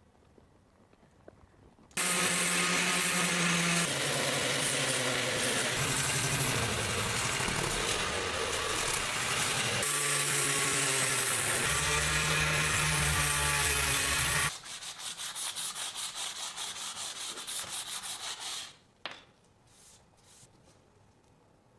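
A small electric power tool sanding or grinding a metal part for about twelve seconds, its motor pitch shifting twice. It is followed by about four seconds of quick rhythmic rubbing strokes, about five a second, then a few light clicks.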